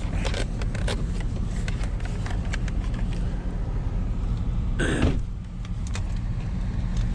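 A vehicle engine idles steadily, with scattered small clicks and knocks from handling over it and one brief, louder knock about five seconds in.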